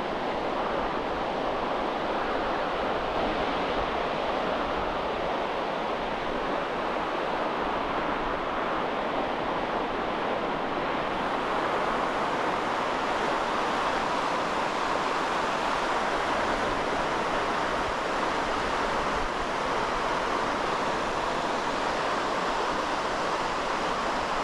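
Small waves breaking and washing in over a flat, shallow sandy shore: a steady surf hiss.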